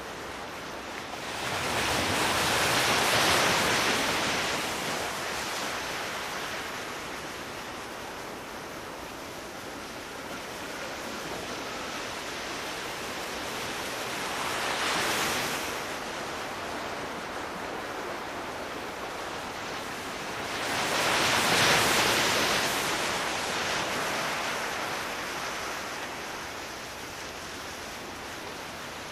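Ocean surf, waves washing in as a steady rush that swells louder three times: about two seconds in, around the middle, and most strongly about three-quarters through.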